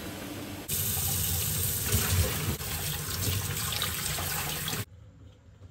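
Cooking water from blanched napa cabbage pouring through a mesh strainer into a pot in a stainless steel sink. It is a steady splashing that cuts off abruptly near the end.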